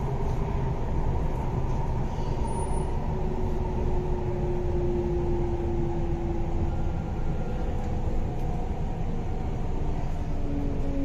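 Running noise heard inside the passenger car of an MTR East Rail Line R-Train electric multiple unit. A steady low rumble of the train under way is joined by a faint whine that slowly falls in pitch.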